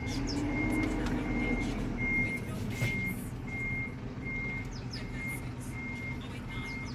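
A vehicle's reversing alarm beeping steadily, about two short high beeps a second, over a low engine and traffic rumble.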